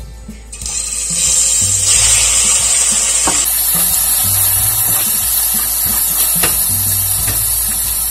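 Diced beef going into hot oil in a stainless steel pot and frying: a loud sizzle starts under a second in and stays steady, with a few clicks of a silicone spatula stirring the meat.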